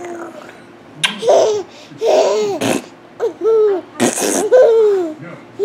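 A baby of nearly one year laughing in about five high-pitched bursts, with sharp breaths between some of them, set off by being tickled with a beard.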